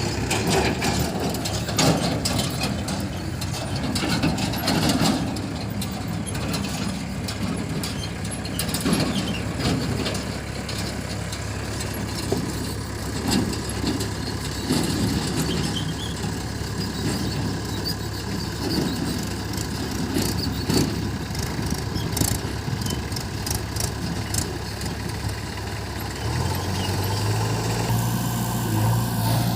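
Heavy diesel engine running steadily during backhoe loading, with scattered knocks and clanks through it. About 26 seconds in the engine note changes to a different, stronger hum.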